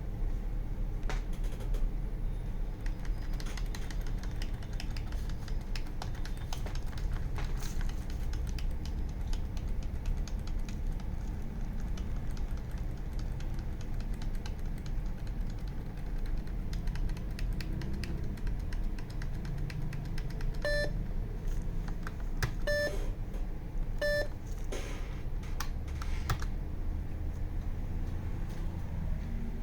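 Light clicks and taps throughout, like keys pressed on a computer keyboard, over a steady low hum. About two-thirds of the way in come three short electronic beeps, a second or two apart.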